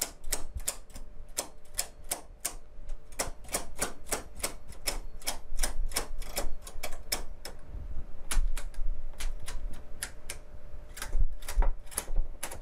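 Rapid metallic clicking of a knitting machine's needles, about three to four clicks a second with brief pauses, as the knitted piece is taken off the needles.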